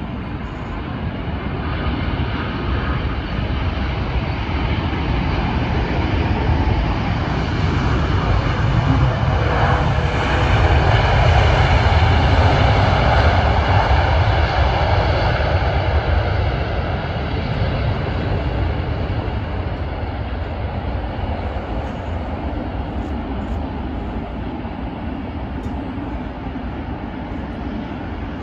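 Airbus A380's four Rolls-Royce Trent 900 jet engines on landing: a steady rumble with a faint whine. It swells to its loudest about ten to fifteen seconds in, then slowly dies away as the airliner rolls on.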